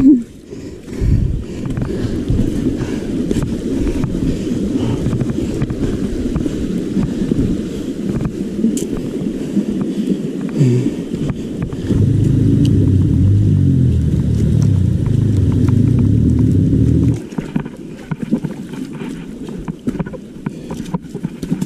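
Low rumble of wind on the microphone and tyres over a rough trail while a mountain bike is ridden, louder and heavier for several seconds in the middle before easing off near the end.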